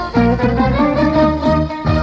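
Instrumental break of a Latin band's recorded song, with no singing: sustained melody notes over bass and percussion, and a quick run of short falling tones in the low range.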